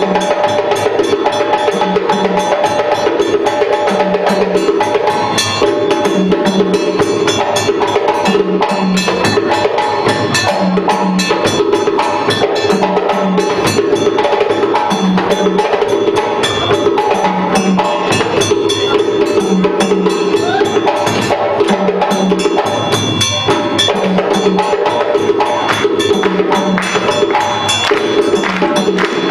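Percussion-led music with a steady, busy rhythm of struck drums and sharp clicking percussion. A low drum figure repeats about every second and a half.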